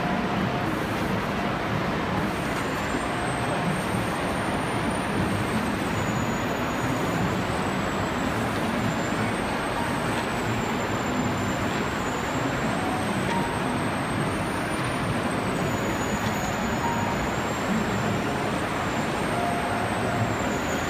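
Steady, even din of running machinery, with a faint high whine wavering in pitch above it, as an inkjet marker plotter prints garment pattern lines, its print head shuttling across the paper.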